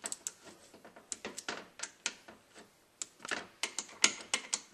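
Small socket ratchet clicking in short irregular runs while tightening the bolts on an automatic transmission valve body, a little louder in the second half.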